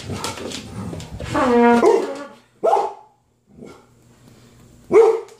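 Pet dog barking at trumpet practice, which it dislikes: a loud held note that sags in pitch at its end about a second and a half in, then two single sharp barks, one midway and one near the end.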